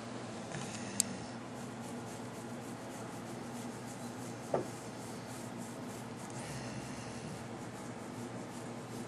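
Black Labrador snoring, slow raspy breaths. A sharp click about a second in and a short, higher sound about four and a half seconds in.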